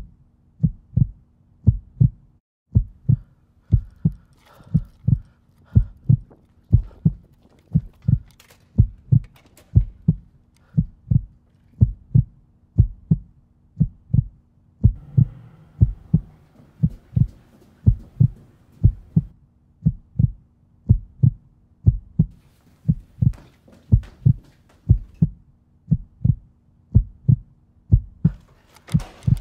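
Heartbeat sound effect: low thumps repeating at an even, steady pace over a faint low hum, with a brief pause about two seconds in.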